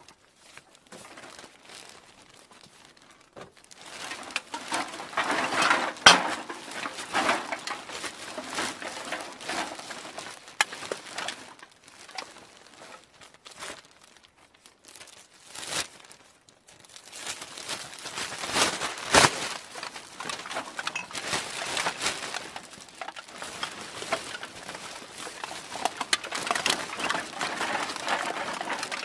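Cans being put into a bag: irregular crinkling and rustling of the bag, with a couple of sharp knocks as cans hit each other.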